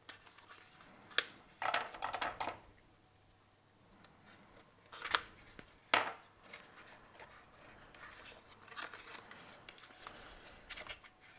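Hands working a cardboard box insert to free a compartment: scattered scrapes and brief rustles of cardboard, with a few sharp clicks, the sharpest about six seconds in.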